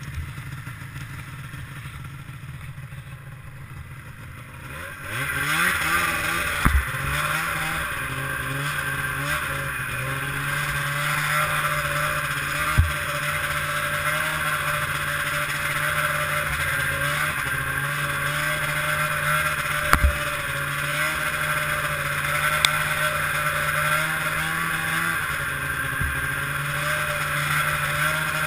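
Ski-Doo MXZ 670 snowmobile's two-stroke twin engine with an aftermarket Walker exhaust can. It runs low, revs up about five seconds in, then holds a steady, louder note under way, with a few sharp knocks.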